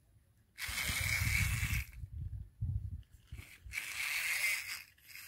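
Small electric toy motor running in two bursts of a second or two each, starting about half a second in and again about three seconds in, with wheels churning through mud and water.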